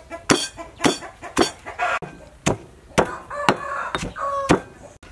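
Stone pestle pounding chilies into lemongrass paste in a stone mortar: nine even strikes, about two a second.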